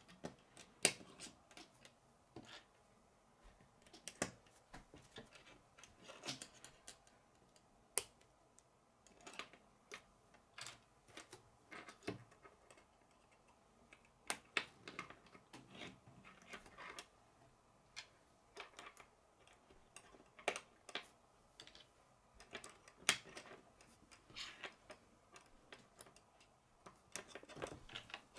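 K'nex plastic rods and connectors clicking as they are snapped together and handled on a wooden table: many short, sharp clicks and taps at an irregular pace.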